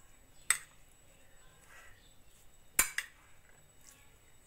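Steel spoon clinking twice against a plate while stirring a chopped salad, once about half a second in and again just before three seconds in.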